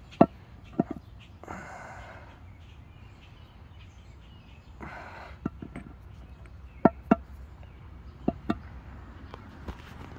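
Stone manos (hand-held grinding stones) clacking against one another as they are handled, picked up from the row and set back down: a handful of sharp knocks with a short ring, several of them in quick pairs.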